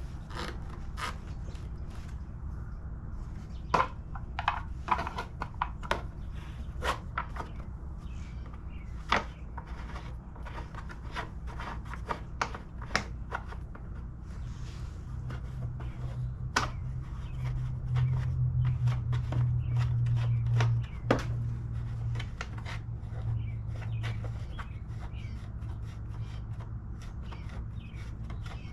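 Scattered clicks, knocks and rubbing as a new air filter and its plastic cover are pushed onto a lawn mower, over a steady low hum that swells for a few seconds about halfway through.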